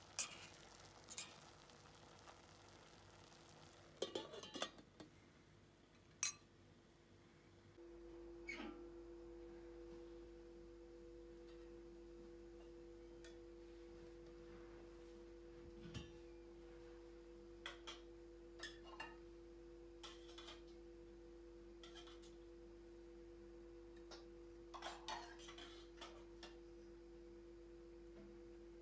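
Scattered light clinks and taps of a ladle and spoons against metal pots, lids and plates while food is served, over a faint steady hum.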